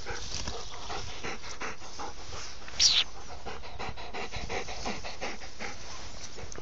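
Dog panting with rapid, even breaths, and one brief louder hiss just under three seconds in.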